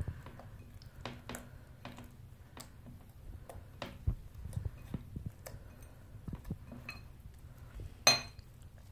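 Sticky slime being kneaded and squished by hand in a glass bowl as borax water is worked in to stiffen it, giving quiet scattered clicks and squelches. One sharper click comes a little before the end.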